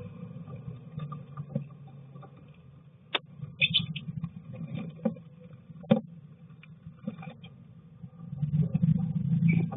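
A female lovebird shuffling in a plywood nest box, rustling dry straw nesting strips, with scattered sharp taps and clicks of beak and claws on the wood. The rustling grows louder near the end.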